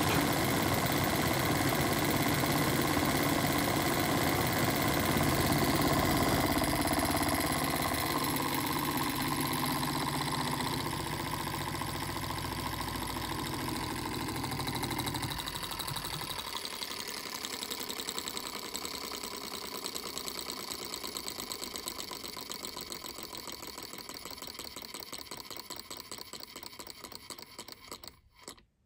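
Small gas-fired Stirling engine running with a rapid, even mechanical beat. About halfway through, the deeper part of the sound drops away, and the running fades steadily until it stops just before the end.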